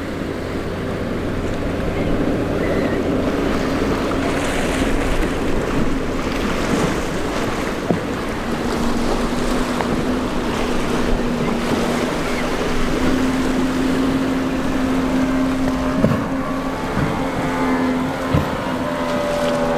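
Surf and spray rushing, with the steady hum of a small Boston Whaler's Yamaha outboard motor as it runs through rough inlet waves. The hum is clearest in the second half, and there are a few thumps near the end.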